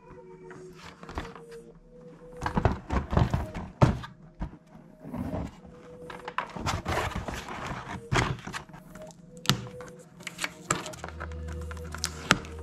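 A cardboard toy-gun box being handled: a series of knocks and taps as it is lifted, turned and set against the table, with scraping of the cardboard in the middle.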